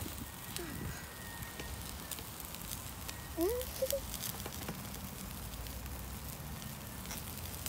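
Faint crackling and light patter of a barbecue grill fire, with scattered small clicks. A brief squeaky sound comes about three and a half seconds in.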